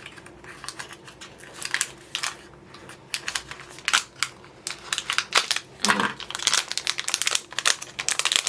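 Small mystery pin box and its wrapping being handled and opened by hand: irregular crinkling, rustling and clicks, getting busier in the second half.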